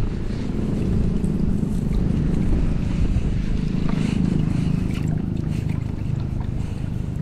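Strong wind buffeting the microphone: a steady, loud low rumble, with a few faint ticks over it.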